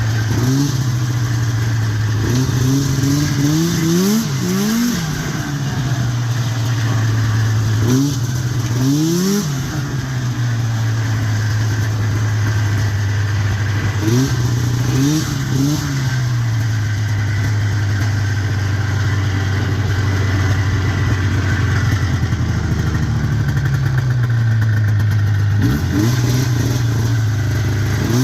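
1990 Arctic Cat EXT 530 snowmobile's two-stroke engine running at a steady speed, with several short throttle blips where the pitch rises and falls back, near the start, about 8 seconds in, about 15 seconds in and near the end.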